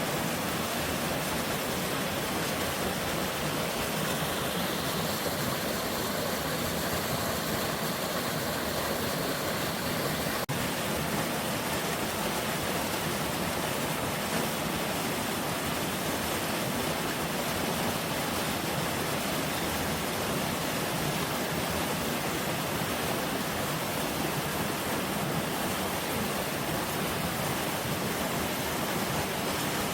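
Mountain stream rushing steadily, running full with spring snowmelt.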